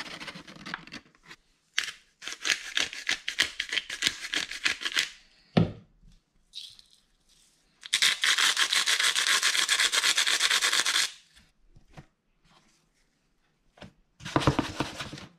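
Flour pouring from a paper bag into a plastic tub with a soft rustle. Then a hand-twisted salt and pepper grinder grinds in two long spells of rapid grating clicks, with a single low thump between them. Near the end comes a short burst of rustling as fish fillets are turned in the flour.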